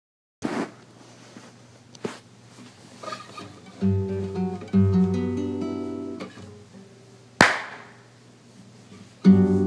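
Nylon-string classical guitar playing a few ringing chords, struck about four seconds in and again near the end. A sharp percussive hit comes about half a second in, and a louder one about seven and a half seconds in.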